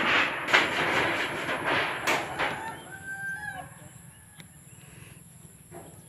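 A rooster crows once, briefly, about three seconds in. Before it a loud rushing noise fades away over the first few seconds.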